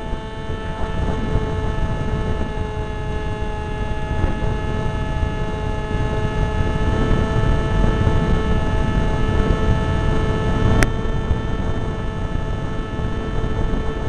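Zagi v4 RC flying wing's motor and propeller running at steady throttle, a constant-pitch drone close to the onboard camera, with wind rumbling over the microphone. A single sharp click near the end.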